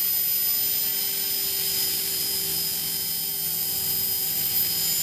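Align T-Rex 450 Pro electric RC helicopter in flight: a steady high-pitched whine from its motor and drive, over the hum of the spinning rotor blades.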